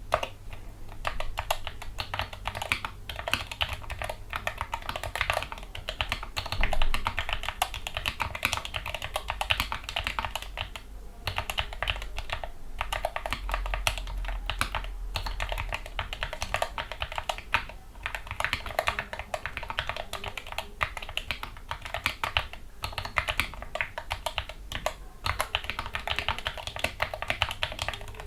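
Continuous fast typing on a Gamakay MK61 mechanical keyboard with lubricated Gateron Yellow optical linear switches and foam dampening: dense keystroke clacks, with a few brief pauses.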